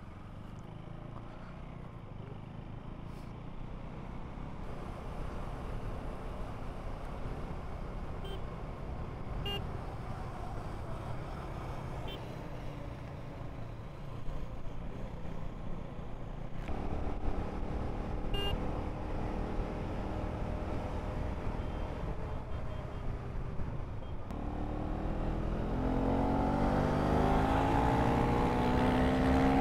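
A vehicle engine running on the move over steady road noise. Its note grows more distinct about halfway through. In the last five seconds the engine accelerates hard, its pitch climbing steadily, then it drops away right at the end.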